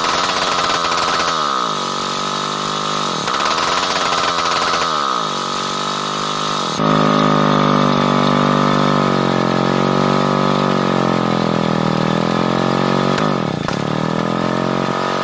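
Electric hammer drill spinning the crankshaft of a D5 two-stroke moped engine to start it, the engine firing with puffs of smoke. There is a steady high motor whine over a lower engine note that sags twice, then runs steadier and louder from about seven seconds in, and dips briefly near the end.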